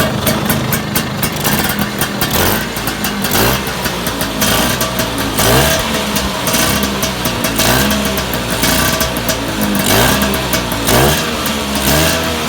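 Vespa PX two-stroke single-cylinder engine running through a King big-box exhaust, idling with a fast popping beat and blipped up in short revs about six times. It has just been tuned up with a new carburettor membrane.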